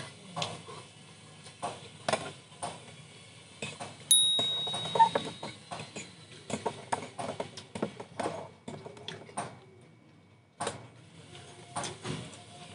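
Metal spoons and forks clicking and scraping irregularly against bowls and a metal pot during a noodle-soup meal, with one louder clink that rings briefly about four seconds in.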